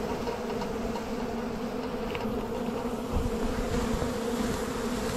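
A honeybee swarm buzzing in a steady, even hum, with many bees flying around the cluster close to the microphone.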